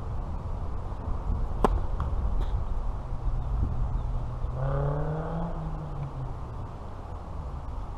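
Tennis ball struck by a racket, a sharp pop about a second and a half in, followed by two fainter ticks, over a steady low rumble. Near the middle a pitched drone rises and falls for about a second and a half.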